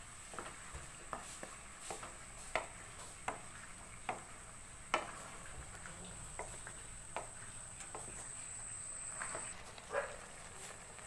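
A spatula scraping and knocking against a metal kadai as chunky vegetable curry is stirred, in irregular strokes about one or two a second, the loudest knock about five seconds in.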